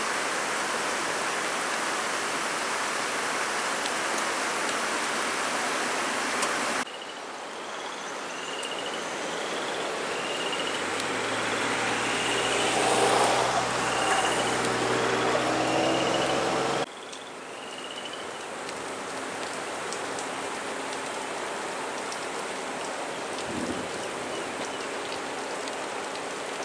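Fast-running floodwater, a steady rushing hiss. After a cut, rain and water with a vehicle engine that grows louder over a few seconds, and a short high chirp repeating about once a second. After a second cut, steady rain on floodwater.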